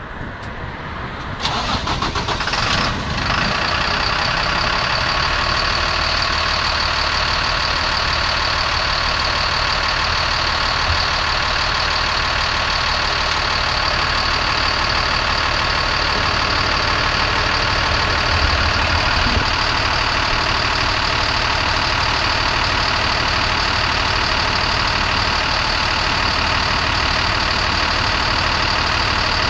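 Engine of a 2005 Sterling Acterra dump truck starting: it catches about a second and a half in, flares briefly, then settles into a steady idle.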